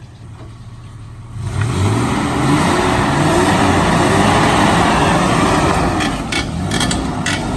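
Off-road 4x4's engine revved hard as it climbs a slick rock obstacle, the revs rising and falling repeatedly under load. Several sharp clicks or knocks come near the end.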